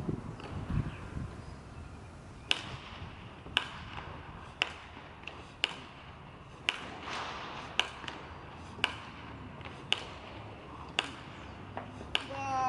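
Baseball bat striking balls in batting practice, a sharp crack about once a second in an even rhythm, about ten hits in a row.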